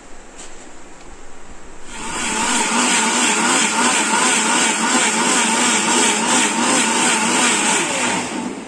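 Electric mixer grinder running, grinding sautéed masala into a smooth paste in its steel jar. It is quieter for the first two seconds, then runs loud and steady at full speed and stops just before the end.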